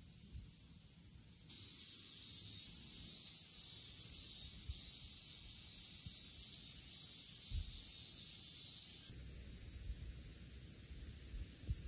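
Summer insect chorus in an open field: a steady high shrill, joined for several seconds in the middle by a pulsing buzz that repeats about twice a second. A few soft low thumps sit underneath.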